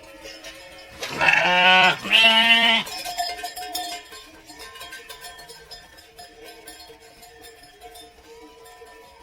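A sheep bleating twice, two loud drawn-out bleats back to back about a second in, over quiet background music.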